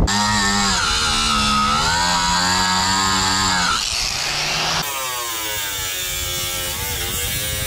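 Electric angle grinder grinding off the adhesive and sealer in a car's inner wheel well and along the wheel-arch panel edge. Its steady whine sags in pitch when it is pressed into the work and recovers, with a rougher grinding stretch near the middle.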